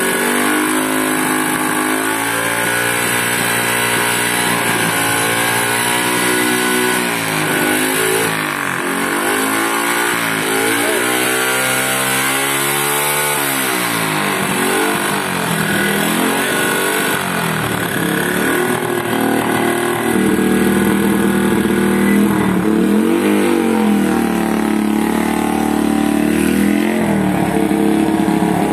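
Motorcycle engine running a homemade fogging machine through a long extended exhaust pipe, revved up and down repeatedly while insecticide-laced fuel is fed in and burned into smoke. Later it settles into steadier, louder running as the bike rides off.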